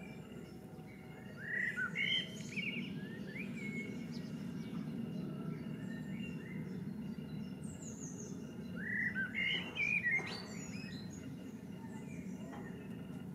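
A songbird singing two short bursts of quick chirping notes, about a second and a half in and again about eight and a half seconds in, over a steady low background rumble.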